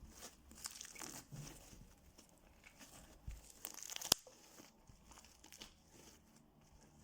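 Fluffy slime made with shaving foam being worked by hand, making faint crackling and popping, with one sharper click about four seconds in.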